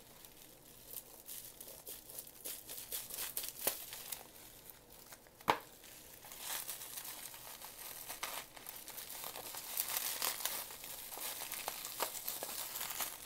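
Bubble wrap being unwrapped by hand: plastic rustling and crinkling with scattered small clicks, one sharper click about five and a half seconds in, and busier crinkling in the second half.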